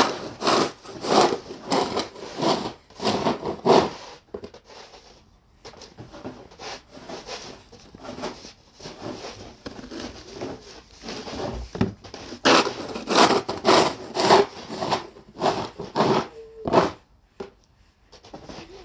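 Snow shovel scraping and pushing through snow in repeated strokes, about two a second. The strokes grow faint for several seconds in the middle, then come strongly again.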